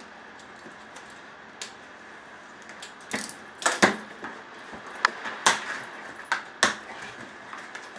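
A mailed package being opened and handled: scattered sharp clicks and knocks with rustling, thickest and loudest a little past the middle.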